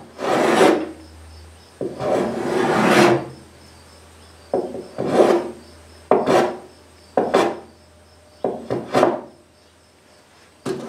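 Hand tool pushed in strokes across the edge of a white oak tabletop, working out a small dent: a rasping swish with each stroke, about eight strokes. The first two are long, the later ones short and quicker.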